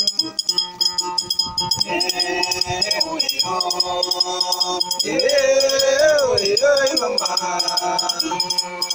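Ekonting, the Jola gourd-bodied folk lute, strummed and plucked in a quick repeating pattern, with a man singing over it. The voice comes in strongest about five seconds in.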